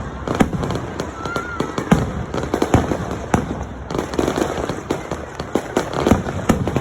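Fireworks going off: a dense, irregular run of sharp bangs and pops, several a second, with one brief whistle a little over a second in.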